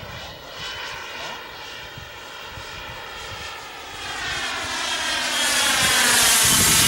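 Radio-controlled model jet flying past, a steady rushing whine that grows much louder over the last few seconds as it comes in low and close.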